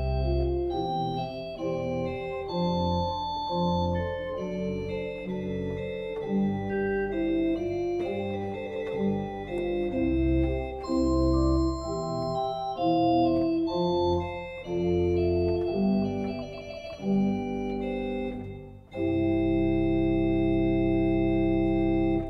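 Church pipe organ playing a polyphonic piece in sustained notes. It ends on a full chord held for the last three seconds or so, which then breaks off.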